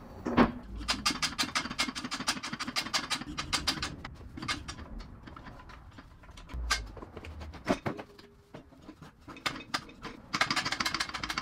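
Rapid mechanical clicking, about seven clicks a second, for about three seconds and again near the end, with a few separate knocks in between.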